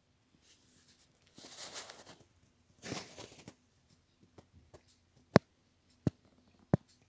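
Handling noise from the filming phone: two brief rustling scrapes, then a few sharp clicks and taps, three of them loud.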